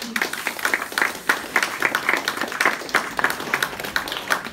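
Audience applauding: many hands clapping at once in a dense, uneven patter.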